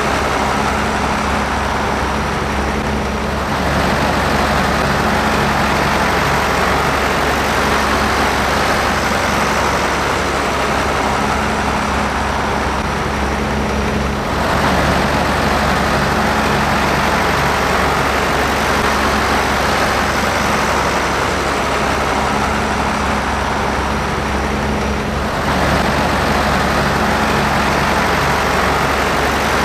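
Massey Ferguson 1200 articulated tractor's diesel engine working steadily under load while pulling a cultivator through the soil. The sound shifts abruptly about three and a half seconds in, again around fourteen seconds in, and near twenty-five seconds in.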